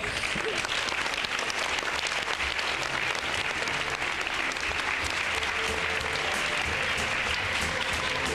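Audience and children on stage clapping in sustained applause. About three seconds in, music begins playing underneath it.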